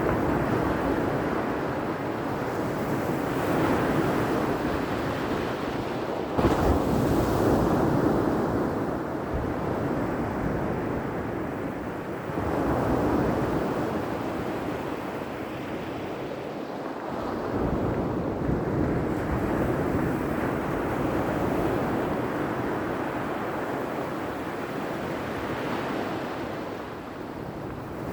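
Ocean waves breaking and washing on a shore, a steady surf that swells and ebbs every few seconds, with one sharper crash about six seconds in. There is a low rumble of wind on the microphone.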